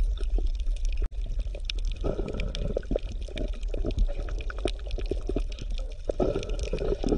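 Water bubbling and gurgling, with many small crackling pops over a low rumble: an aquarium or underwater water sound.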